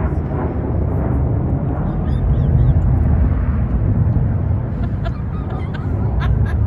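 Low, steady rumble of military fighter jets flying overhead, with a few faint high chirps about halfway through.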